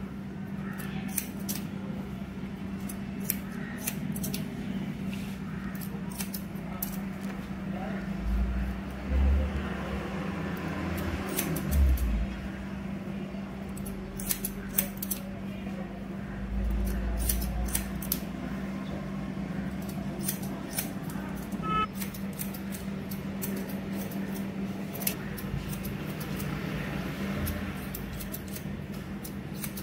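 Steel haircutting scissors snipping through hair in irregular runs of quick cuts, as hair is cut over a comb. A steady low hum runs underneath, with a few dull bumps.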